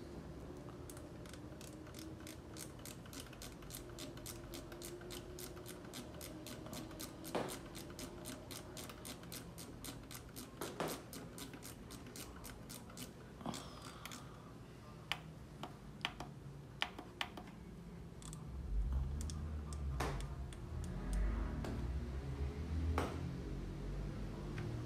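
Light clicks and taps of tools being handled on a soldering bench: an even run of quick light clicks, about four a second, for roughly the first half, then scattered sharper clicks, with a low rumble in the last few seconds.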